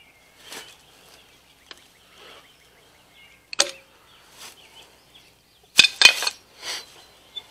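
Scattered metal clinks and knocks of hand tools being handled: a large adjustable wrench is moved and laid down among other tools in a bucket, with the loudest knocks about six seconds in. Soft rustling sounds fall between the knocks.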